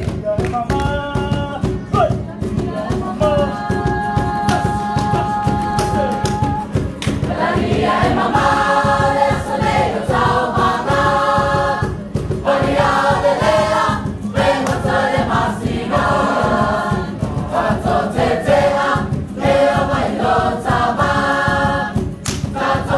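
A large group singing together in harmony, Samoan song, over a steady beat. A single held note opens it, and the full group comes in loudly about eight seconds in.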